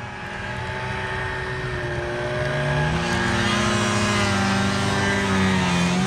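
Snowmobile engine running, its pitch rising as it speeds up about two and a half seconds in, then holding steady.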